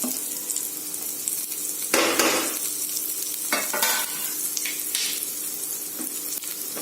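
Chopped garlic and chili sizzling in hot oil in a pan, with a spatula stirring and scraping through it a few times.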